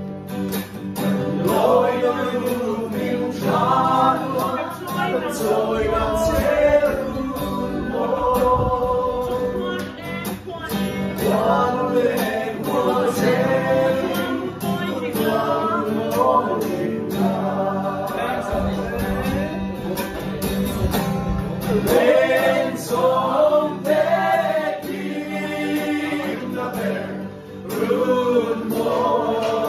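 A group of men and women singing together to a strummed acoustic guitar.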